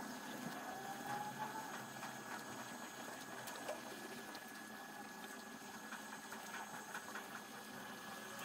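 Faint ticks and light rustling of thread being pulled and looped around the copper-plated nails of a string-art board, over a steady low hum.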